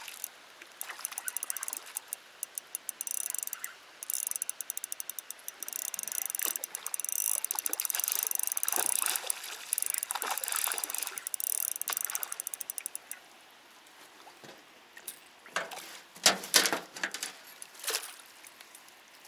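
Fishing reel being cranked to retrieve a lure: a fast, even run of ratchet-like clicks with a brief pause, stopping a few seconds before the end. A few loud knocks follow near the end.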